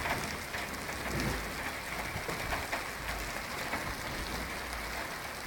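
Steady rain falling during a storm, with wind rumbling on the microphone.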